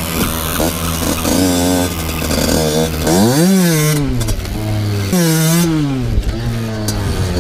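Two-stroke motocross bike engine revving up and down several times, with a big rise and fall about three seconds in and another about five seconds in.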